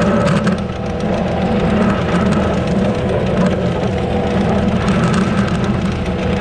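Heavy diesel machine engine running steadily under load, with scattered clatter over the low engine hum.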